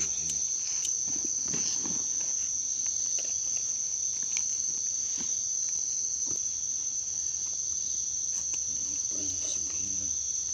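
Steady high-pitched chorus of night insects, with faint knocks and rustles of a sack being handled.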